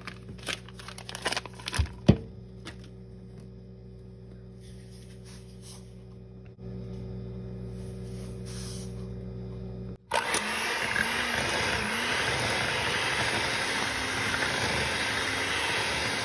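A few knocks and a steady low hum. From about ten seconds in, a loud electric hand mixer runs, its beaters creaming butter and sugar in a glass bowl.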